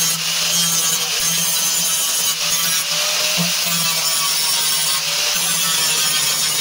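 Electric angle grinder with a thin cutting disc cutting along a rusted sheet-steel car door panel: a steady, high-pitched grinding of disc on metal over a low motor hum.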